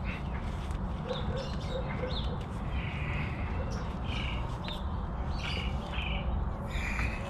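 Small birds chirping in short, repeated calls over a steady low rumble, with a few faint clicks.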